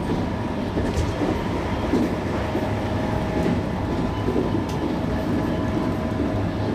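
Interior of a JR West 221 series electric train running at speed: a steady rolling rumble of wheels on rail, with a steady whine held under it throughout.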